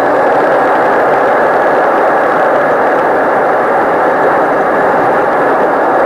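Jet airliner's engines and rushing air heard from inside the passenger cabin during the takeoff run: a loud, steady roar.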